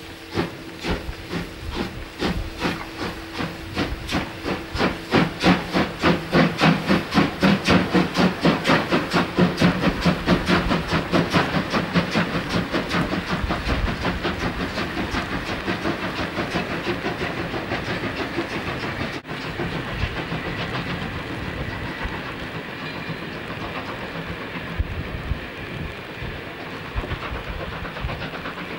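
Steam locomotive starting away, its exhaust chuffs coming ever faster until they blur together, with steam hissing; a steady two-note tone sounds in the first few seconds. Later the train runs on with a continuous rumble and wheel clatter.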